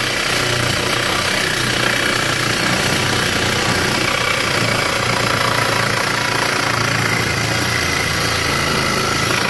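Cordless reciprocating saw running steadily, its blade sawing through the inlet pipe of a catalytic converter.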